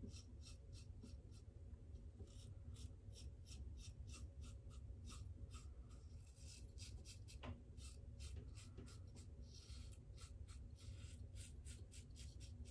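Supply single-edge injector razor scraping through stubble and lather in short, quick strokes, a faint scratchy rasp about three times a second.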